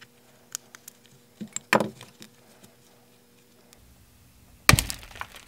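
Shattered iPhone 12 back glass being snapped off by hand: a few sharp cracks and clicks, the loudest a sudden crack with a low thump near the end.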